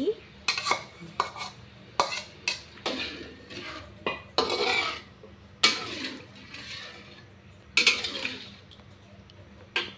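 Spatula scraping and knocking against a wok while beef pieces are stirred into soto broth: an irregular string of sharp clinks and short scrapes, the sharpest clink nearly six seconds in.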